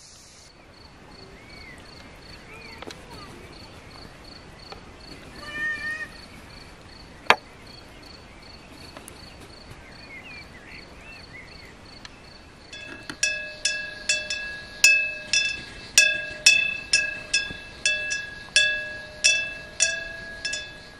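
Outdoor ambience of an insect chirring in a steady, fast-pulsed high tone, with a few short bird calls and a single sharp click. About 13 seconds in, a louder ringing clink of the same pitch starts repeating about twice a second, each strike dying away.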